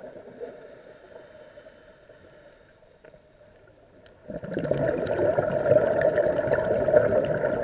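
A scuba diver's exhaled bubbles from the regulator, a gurgling rush heard underwater. It fades away over the first seconds, there is a quiet gap, and then a new exhalation of bubbles starts suddenly about four seconds in.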